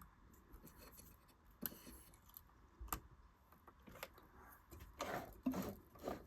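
Faint scattered clicks and rubbing as hands work a Singer Genie sewing machine, turning it over by hand to pick up the bobbin thread. The rustling handling grows louder near the end.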